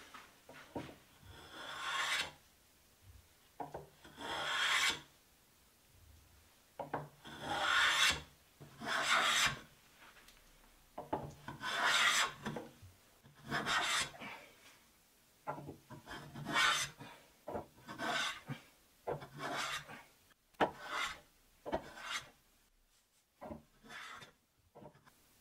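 Small wooden curved-sole hand plane shaving cherry wood along a curved table leg, in a long series of hissing strokes each under about a second. The strokes grow shorter and quicker in the second half.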